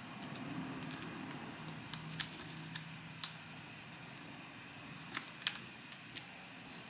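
Origami paper crinkling and crackling under the fingers as a flap is folded and creased, with a few sharp crackles: a couple about two seconds in, one near three seconds and a close pair about five seconds in, over a steady faint hiss.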